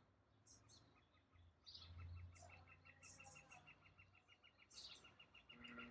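Faint birds chirping: scattered short high chirps, with a rapid, regular chirping trill joining in about two seconds in.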